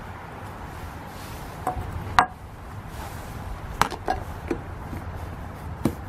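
Serving utensil clinking against a glass food container and the slow-cooker pot as cooked chitterlings are scooped out. About six sharp clinks, each with a short ring; the loudest comes about two seconds in.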